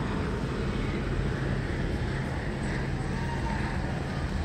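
Steady street noise of vehicles and engines, an even din with a low hum and no distinct events.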